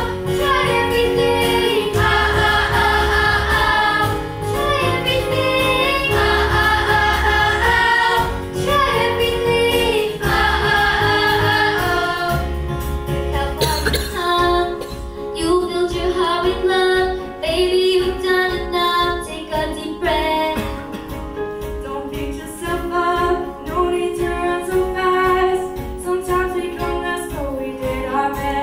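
Group of children singing a song together to instrumental accompaniment. A heavy bass beat runs under the voices for the first half and drops away about halfway through, leaving lighter accompaniment under the singing.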